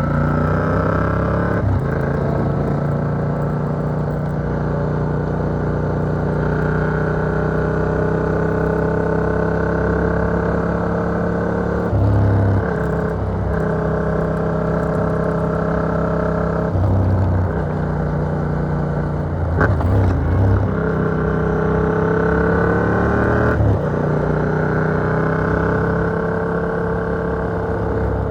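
Yamaha MT-07's parallel-twin engine through an Arrow Works exhaust with dB killer, heard muffled from inside a rider's backpack. It pulls through long stretches of slowly rising engine speed, broken about half a dozen times by brief dips as gears are changed.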